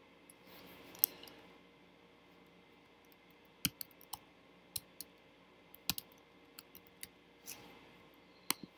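Metal tongs clicking against cooking pans: scattered short, sharp clicks, some in quick pairs, over a faint steady room hum.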